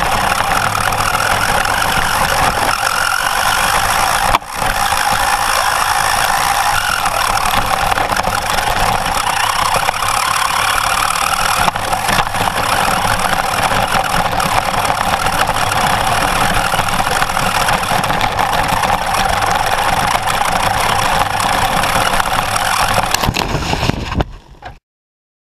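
On-board sound of a toy RC buggy driving over dirt: its electric motor whining, with the plastic body rattling as it bounces over the ground. The sound drops out briefly about four seconds in and cuts off suddenly near the end.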